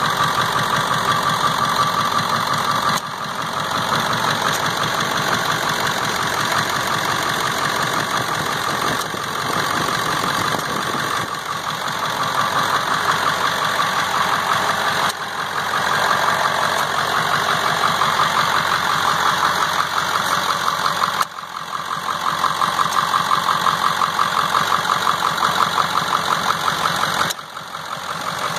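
2000 Ford F-550 truck engine idling steadily with the hood open, a fast even pulse running through it; the level dips briefly a few times.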